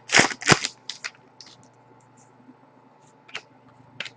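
Trading cards being handled and flipped through by hand: two sharp snaps right at the start, then a few light ticks.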